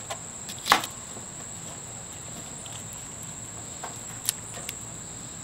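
Kitchen knife cutting through a jalapeño onto a plastic cutting board: one sharp knock about a second in and lighter ones near the end. Under it runs a steady high-pitched drone of insects.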